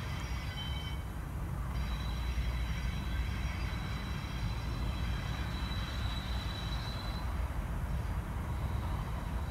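Pair of Class 37 diesel locomotives with English Electric V12 engines rumbling in the distance as they approach. A thin steady high whine sounds from about two to seven seconds in.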